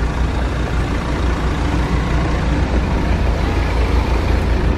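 Steady low rumble of vehicle engines running, with a wash of outdoor traffic noise.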